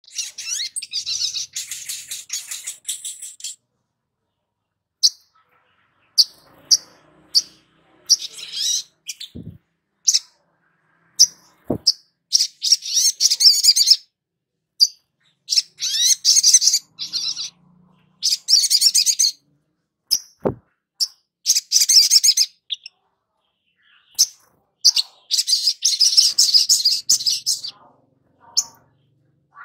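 Olive-backed sunbird (sogon) singing: high-pitched, rapid twittering phrases of one to three seconds broken by short pauses, with single sharp chirps in between. It is lure song, used to get newly caught young sunbirds singing.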